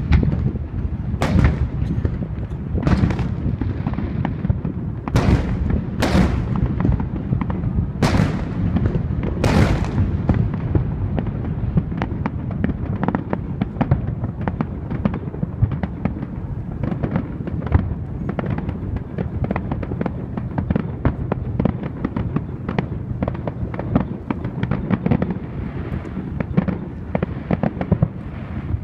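Aerial fireworks shells bursting: about seven loud booms one to two seconds apart in the first ten seconds, then a dense crackle of many small bursts over a steady low rumble.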